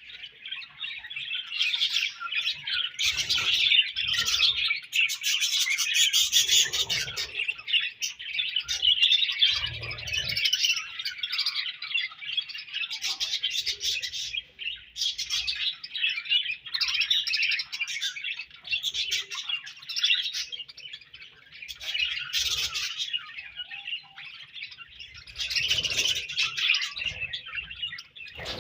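A flock of budgerigars chirping and warbling together in a dense, continuous chatter, with a few brief low thumps.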